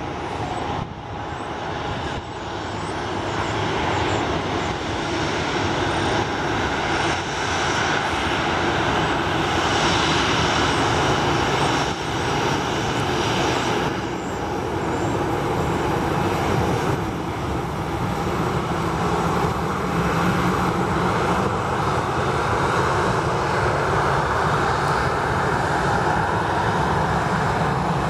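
Boeing 737-800's twin CFM56 jet engines running at taxi power as the airliner rolls slowly past close by. It is a steady jet rush with a faint whine; it grows louder over the first few seconds, then holds.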